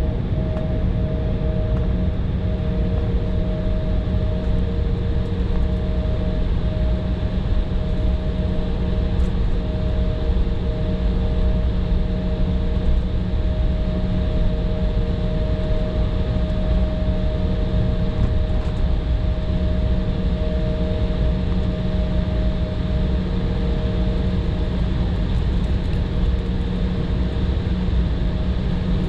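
Steady engine drone and rumble of an airliner heard from inside the cabin, with a constant low hum and two faint steady higher whining tones.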